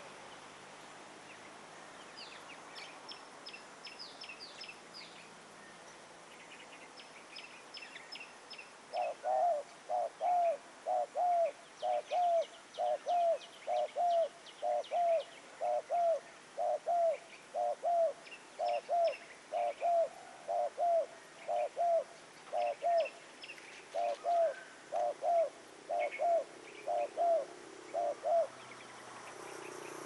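Spotted dove cooing: from about nine seconds in, a long run of short, low, evenly spaced coos, often in pairs. Small birds chirp high and thin above it.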